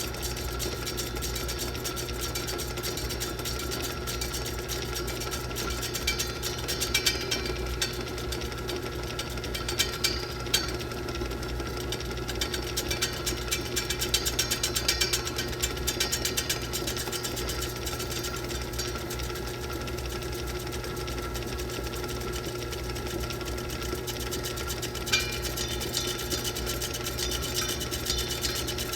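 Film projector running: a fast, steady mechanical clatter over a constant motor hum, with a few louder clicks scattered through it.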